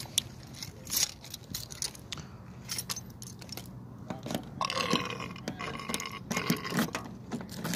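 A man burping: a long, rough belch about halfway through, with light clicking and keys jangling throughout.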